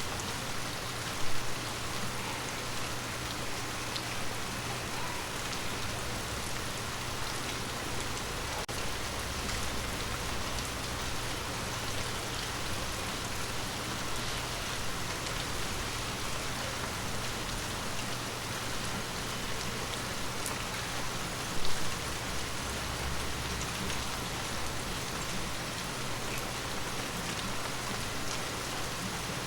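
Steady rain falling on forest leaves, an even hiss of many drops. Two brief louder thumps stand out, one about a second in and one about twenty-two seconds in.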